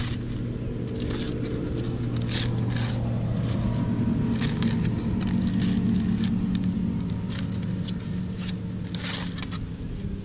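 A motor runs with a steady drone, growing louder toward the middle and easing off near the end. Aluminium foil crinkles a few times as it is torn open.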